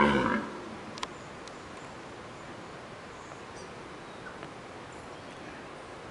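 A red deer stag gives one short, loud rutting roar, a single grunt that fades within about half a second. A sharp click follows about a second later.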